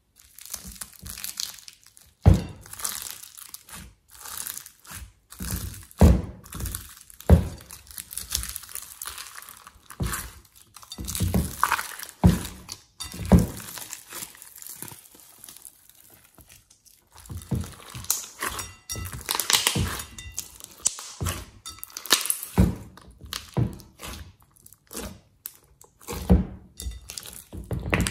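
Slime packed with small foam beads being squeezed and kneaded by hand, giving irregular crunching, crackling and popping with sudden heavy thuds and squelches as it is pressed.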